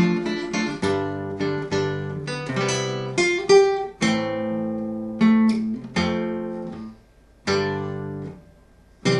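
Acoustic guitar playing the closing chords of the song: a quick run of strummed chords, then slower single chords left to ring, with a last chord struck near the end.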